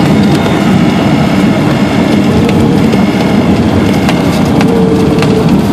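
Cessna 172 rolling out on a grass runway, heard from inside the cabin: a dense, steady rumble and rattle of the wheels and airframe over the turf, with many small knocks from bumps, over the running engine.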